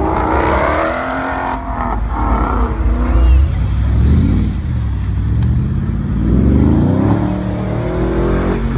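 Car engines revving and accelerating, the pitch climbing in a couple of pulls over a deep exhaust rumble. There is a short hiss in the first second or so.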